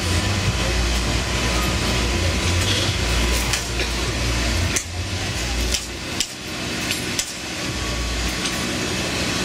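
Glassblowing bench torch burning with a steady rushing hiss, under a low rumble that thins out for a couple of seconds in the middle. Several sharp clinks of glass or tools land around the middle.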